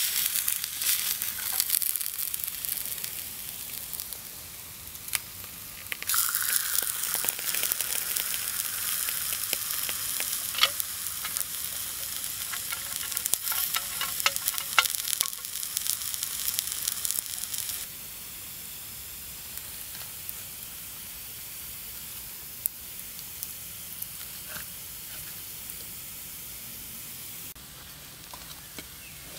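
Cooking oil sizzling in a hot frying pan over a campfire, then a louder sizzle with frequent crackling pops as raw meat fries in it from about six seconds in. About two-thirds of the way through the sizzle cuts off suddenly, leaving a fainter steady hiss.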